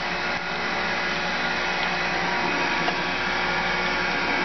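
Spindle motor of a new 6 x 18 inch manual surface grinder running steadily, a constant machine hum with several steady tones in it.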